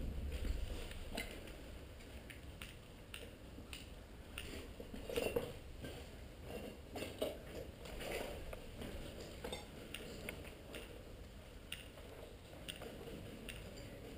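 Scattered small clicks, knocks and crunches at irregular intervals, a few louder ones in the middle: broken rubble and kit shifting under a person moving on a debris-covered concrete floor.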